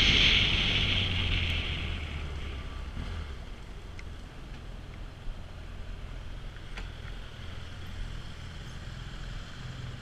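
BMW F800GS parallel-twin engine on a dirt track, easing off: the sound falls over the first few seconds as the bike slows, then settles to a low, steady engine note with a few faint knocks.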